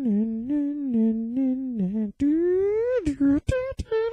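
A man humming a cartoon theme tune without accompaniment: one long, wavering low note for about two seconds, then a rising glide into a few short, higher notes.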